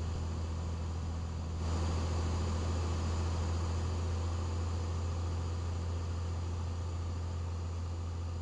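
Cessna 182's engine and propeller droning steadily, heard inside the cabin with no headset, growing louder about one and a half seconds in.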